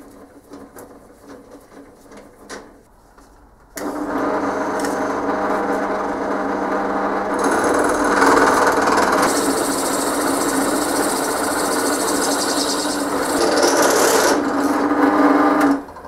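Light handling clicks, then a bench drill press starts about four seconds in and runs with a steady hum while a large reduced-shank drill bit cuts into a rough metal casting. The cutting grows harsher from about halfway, the bit struggling on the rough cast surface, and it stops just before the end.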